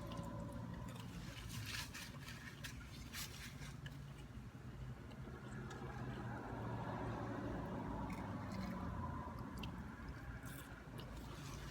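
Close-up eating sounds: chewing, with small clicks and scrapes from handling fast food, clustered about two to three seconds in and again near the end, over a steady low hum.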